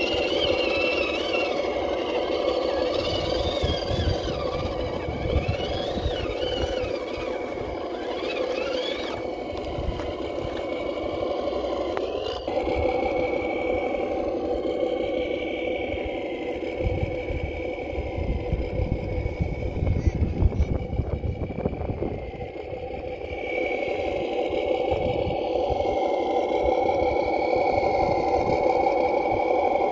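Radio-controlled six-wheel army truck driving: a steady motor hum with a high whine that dips briefly about twenty-two seconds in, and wind gusting on the microphone.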